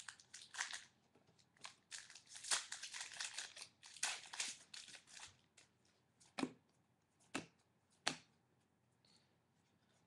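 Plastic wrapper of a Prestige football card pack torn open and crinkled by hand. Then the cards are handled, with three sharp clicks in the second half.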